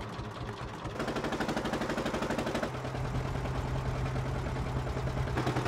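Engine of a small wooden motor boat chugging with rapid, even exhaust pulses. A steady low hum joins about three seconds in.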